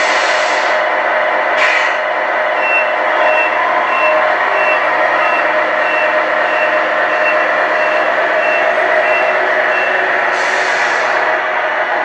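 A toy truck's electronic sound unit playing a simulated truck engine running steadily. A reversing beeper sounds about one and a half times a second through the middle, and short air-brake hisses come near the start, about two seconds in, and near the end.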